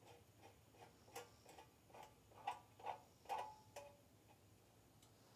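Ratchet wrench clicking faintly while tightening the bolts that hold the drill press base, about a dozen irregular clicks roughly three a second that stop about four seconds in.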